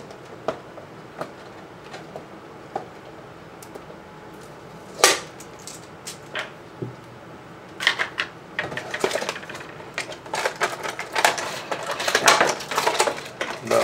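Clear plastic packaging tray being handled and pulled from the box: a few scattered taps and clicks, a sharper crackle about five seconds in, then dense crinkling and rustling of the plastic from about eight seconds on.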